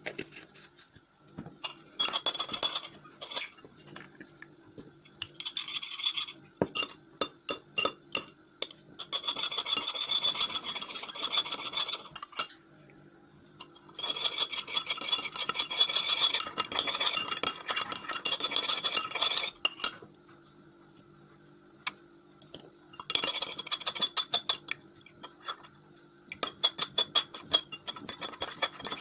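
A utensil stirring and scraping against a bowl as slime ingredients are mixed, in bouts of a few seconds with scattered clinks between them.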